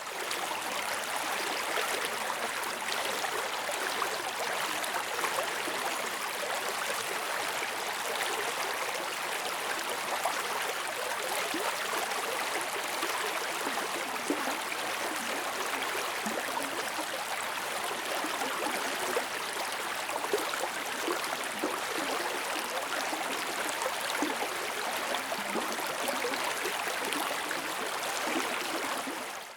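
Forest river water flowing: a steady rush of water, with small gurgles through it.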